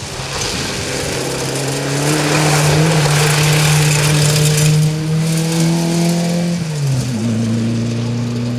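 Rally car engine held at high revs with its pitch creeping slightly up as the car passes close, tyres spraying mud and gravel with a loud hiss. About seven seconds in the revs drop sharply and the engine runs on at a lower, steady pitch.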